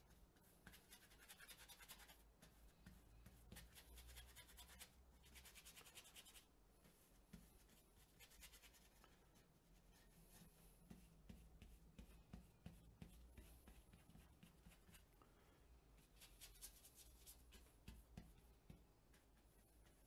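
Faint scratchy scrubbing of a flat paintbrush laying water-mixable oil paint onto a textured canvas, in several short bouts of strokes with pauses between.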